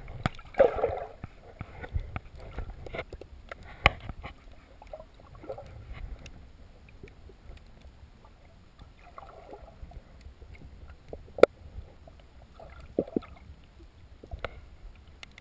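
Muffled underwater sound picked up by a submerged camera: low water rumble with short gurgling bursts and scattered sharp clicks and knocks.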